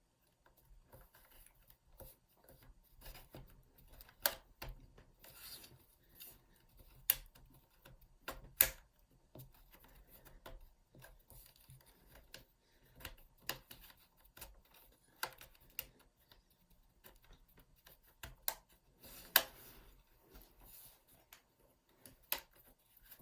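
A pry pick scraping and rubbing along the seam of an MSI GP66 Leopard laptop's bottom cover, with sharp clicks as the cover's plastic retaining clips pop loose. The loudest snaps come about four, seven and eight and a half seconds in and again near nineteen seconds.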